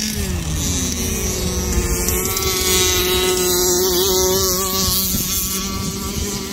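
A 1/5-scale petrol RC car's small two-stroke engine running under throttle with a high buzzing note. The pitch dips just after the start, then climbs and holds high and steady through the middle before easing off near the end.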